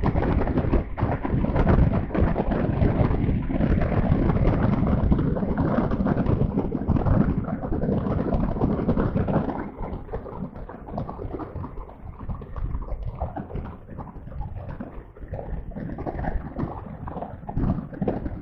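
Wind buffeting the microphone and water spray rushing past a jet ski running at high speed, a steady rough roar that eases somewhat about halfway through.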